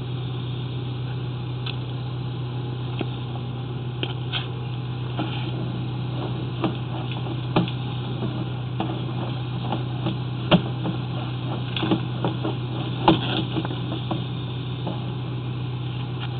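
Steady low machine hum from running equipment, with irregular sharp clicks and knocks over it, the loudest about ten and thirteen seconds in.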